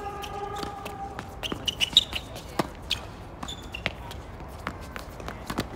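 Doubles tennis rally on a hard court: a string of sharp pops from balls struck off racket strings and bouncing on the court, the loudest about two seconds in.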